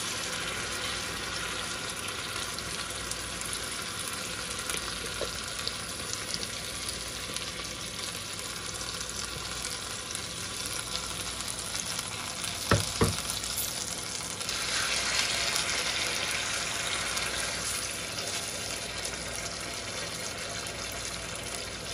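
Yogurt-marinated chicken pieces sizzling in oil and butter in a frying pan while a wooden spatula stirs them. Two sharp knocks come about two-thirds of the way through, and the sizzle grows louder for a few seconds after.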